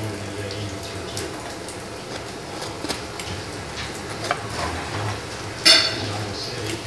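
Small clicks and scrapes of a metal utensil dipping into a cup of icing and spreading it over rolls in a dark metal baking pan, with one sharp ringing clink of the utensil against the pan near the end.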